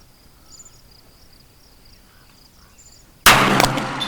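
A CZ pistol firing one shot about three seconds in: a sudden loud report with a long echo trailing off. Crickets chirp faintly before it.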